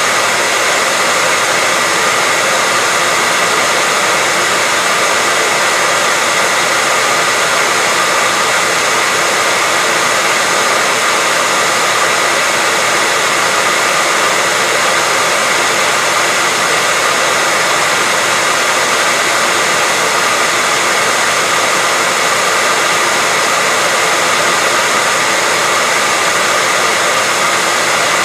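Electric hairdryer running steadily: a constant rush of blown air with a faint motor whine, unchanging throughout.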